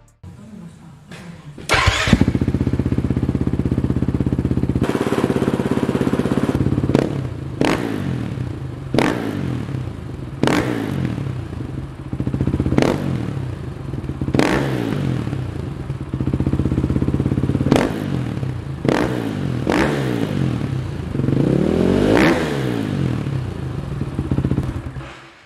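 2019 KTM 450 EXC's single-cylinder four-stroke engine, through an FMF Factory 4.1 exhaust, starting up about two seconds in. It then idles with a run of short throttle blips and one longer rev near the end, and cuts off just before the end.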